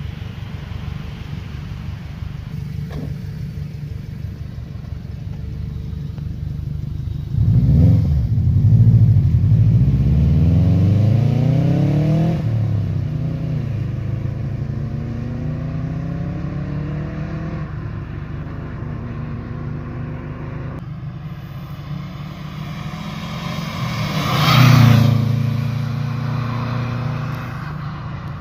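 A car doing a hard acceleration pull. The engine revs up with rising pitch, drops back at a gear change about 12 s in, climbs again and fades into the distance. A second car swells up and goes past loudly near the end.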